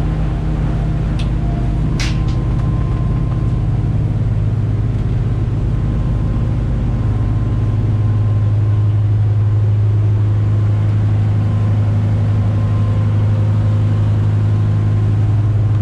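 The Marex 310's single stern-drive engine running under way, a steady low drone heard inside the wheelhouse, where the engine sits under a deck hatch. The drone grows louder about halfway through. Two short sharp clicks come in the first two seconds.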